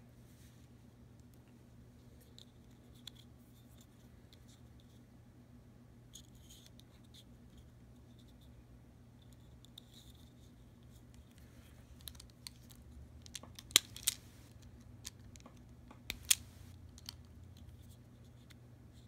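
Small insulated wires being twisted and handled by fingers: scattered faint scratches and clicks, with a cluster of sharper clicks in the second half, over a steady low hum.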